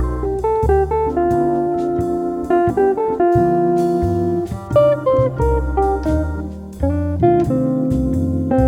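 Jazz background music: plucked guitar notes over a walking bass line.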